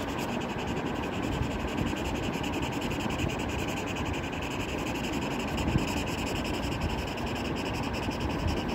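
Felt-tip marker scribbling rapidly back and forth on paper, a steady rubbing scratch while an area is coloured in.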